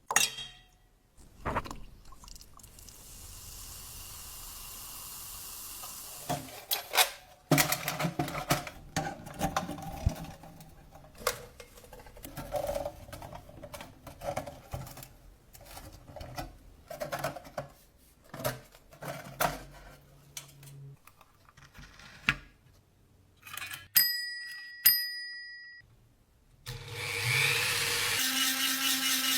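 Clicks and mechanical clunks of an old, rusty mechanical cash register being worked, then its bell rings twice, about a second apart. Near the end a power drill starts and runs steadily.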